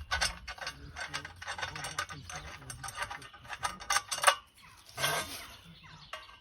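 Pergola parts being handled and fitted together: a run of clicks, knocks and rubbing, with the loudest knock about four seconds in.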